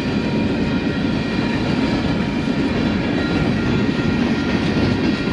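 Union Pacific freight train rolling past, a steady rumble of wheels on the rails.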